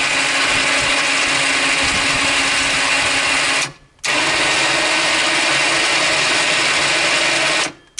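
Electric winch on a Massimo 500 MSU UTV running under its newly installed remote control, powered twice for about three and a half seconds each with a short stop between. The steady motor-and-gear hum changes pitch slightly on the second run.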